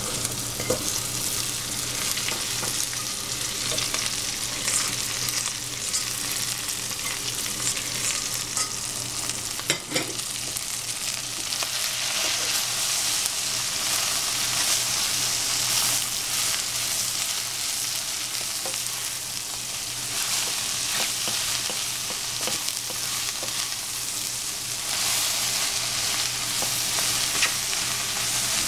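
Shiitake mushrooms and freshly added cabbage sizzling in hot oil in a pan, with a steady hiss and frequent small clicks and scrapes as they are stirred. There is one sharper knock about ten seconds in.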